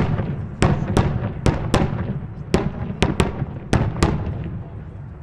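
Reports (salutes) from a 12-inch aerial ball shell going off in sequence: about ten loud, sharp bangs at uneven spacing over four seconds, each trailing a rolling echo.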